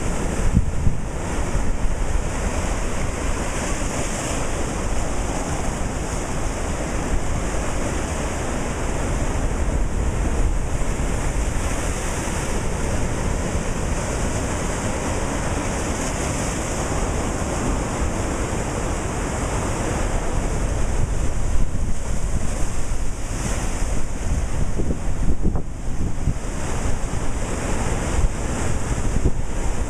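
Ocean surf breaking over shore rocks: a steady wash of white water that swells every few seconds as waves crash. Wind buffets the microphone underneath.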